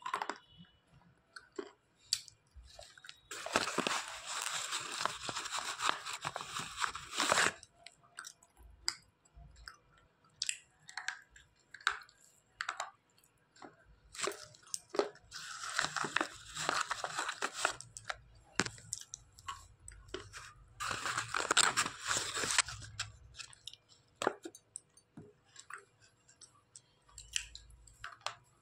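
A person biting and chewing slate pencil, a dry, gritty crunching in three long spells with scattered small crunches and clicks between them.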